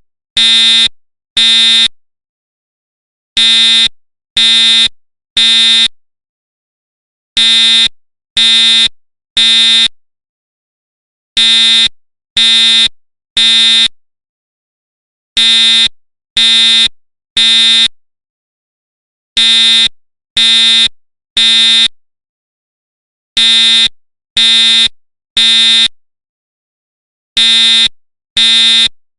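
School fire alarm horn sounding the temporal-three evacuation pattern: three short pitched blasts, a pause, and again, repeating about every four seconds.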